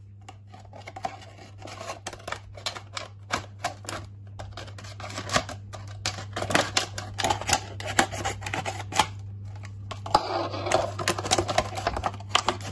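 Scissors snipping and working through a thin plastic bottle: a quick, uneven run of sharp clicks and crackling plastic, with a steady low hum underneath.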